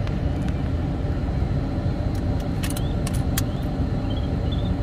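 Vehicle engine idling, a steady low rumble heard from inside the cab, with a few light clicks about three seconds in.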